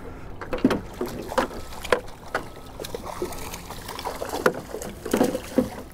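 A hooked trout splashing at the surface as it is played to the boat and scooped into a landing net: irregular sharp splashes and knocks, about seven of them, over a steady low wind rumble.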